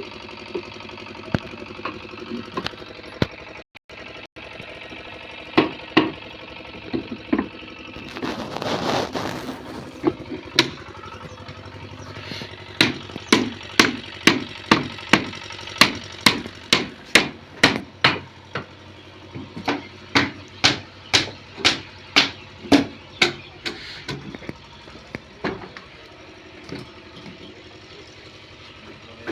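Hammer blows, a run of sharp strikes about two a second through the middle, with scattered strikes before and after, over a steady engine hum. A brief noisy rush comes about eight seconds in.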